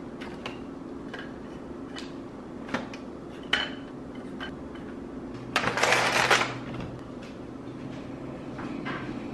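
Crackers and a cardboard cracker box being handled, with light taps and clicks as crackers are set on a ceramic plate. Just past the middle comes a louder rustle lasting about a second.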